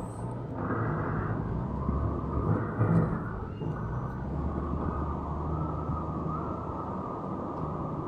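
Heavy construction machine's diesel engine running steadily, briefly louder about three seconds in.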